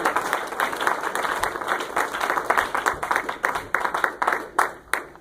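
Audience applauding, dense at first and thinning to a few scattered claps near the end.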